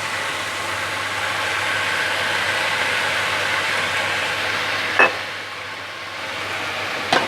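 Onions, capsicum and sauces frying in hot oil in a kadai, sizzling steadily. Two short sharp clicks about five seconds in and again near the end.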